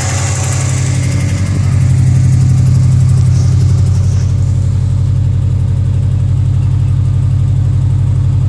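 A 2004 Subaru WRX's turbocharged flat-four runs at a steady, pulsing idle of about 1,500 rpm while still cold, with the check-engine light on; the owner is chasing a sputter in this engine. After about a second the sound turns duller, as it is heard from inside the car's cabin rather than from the open engine bay.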